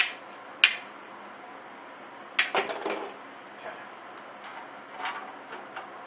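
Tin snips cutting wire mesh: two sharp metallic snips, one at the very start and one just after half a second, then a cluster of clicks and rattles about two and a half seconds in, with a few lighter clicks later from the mesh being handled.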